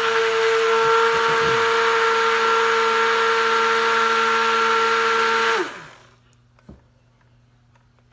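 Hand-held stick blender running steadily with a high motor whine as it mixes cold-process soap batter toward a thick trace. About five and a half seconds in it is switched off and winds down, falling in pitch, followed by a light tap.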